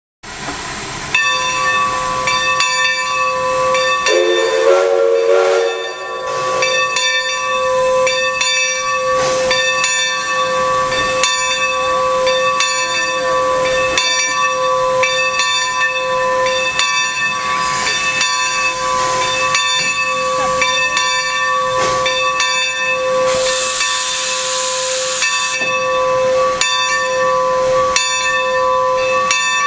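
Standing 2-8-2 Mikado steam locomotive No. 45 venting steam: a steady hiss with a constant high whine. A brief wavering tone comes in about four to six seconds in, and a stronger burst of hiss comes about 23 seconds in.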